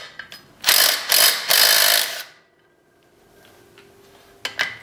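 Cordless power driver running on the secondary clutch's centre bolt of an ATV's CVT to loosen it off. It runs in one rattling spell of about a second and a half, starting a little under a second in, then stops abruptly.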